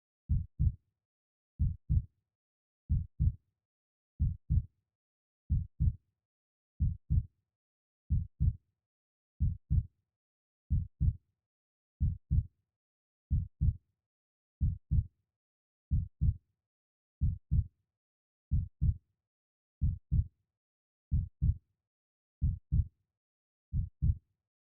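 Slow, steady heartbeat: a double lub-dub thump repeating about every second and a half, with silence between beats.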